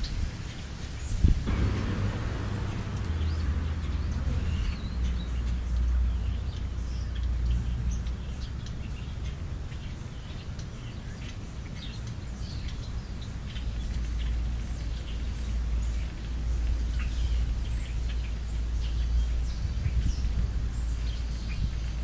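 Scattered short bird chirps over a low, uneven rumble. A single knock about a second in is followed by a brief rustle.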